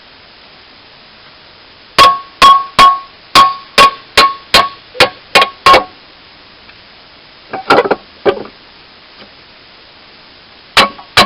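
Hammer blows on steel, each strike ringing with a clear metallic tone: a run of about ten strikes starting about two seconds in, a quick flurry near eight seconds and two more near the end.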